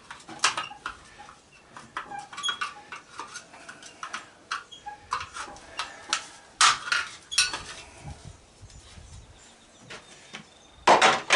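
Metal clinking and clanking of a screwdriver prying a part out of an old AC condenser unit, in irregular knocks and scrapes. The loudest knocks come about two-thirds of the way through and again just before the end.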